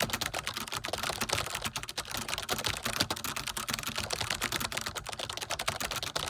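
Computer keyboard being typed on fast: a steady clatter of many key clicks a second.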